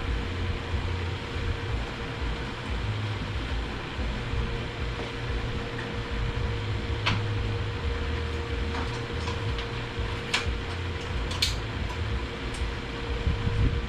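Steady mechanical hum with a faint steady whine underneath, and a handful of sharp metallic clicks in the second half as transmission parts are worked into the case.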